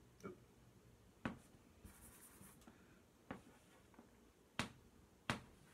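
Chalk on a blackboard: about five sharp taps as points are dotted onto a graph, with a short soft scratch of a chalk stroke between them. The last two taps are the loudest.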